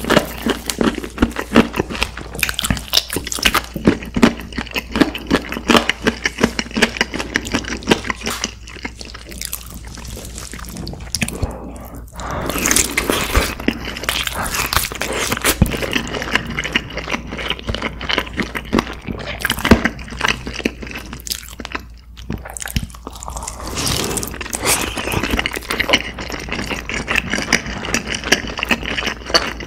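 Close-miked eating of a sauce-glazed roasted chicken leg: wet chewing and lip smacking with many small sticky clicks. The mouth sounds come in quick runs, with a quieter stretch near the middle.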